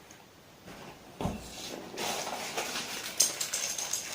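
A soft thump, then rustling and crinkling of a plastic wrapper with small clicks as a keyboard in its packaging is handled.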